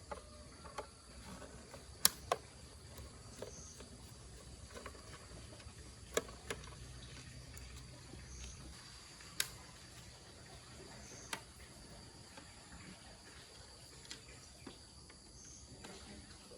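Quiet background with a steady high insect drone and a faint high chirp every few seconds. About six sharp clicks or taps stand out, some in quick pairs.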